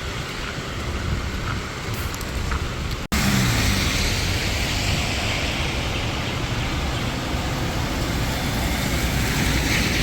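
Steady hiss of rain and car traffic on a wet street. A momentary dropout comes about three seconds in, after which the hiss is louder and brighter, with a vehicle's engine note briefly falling.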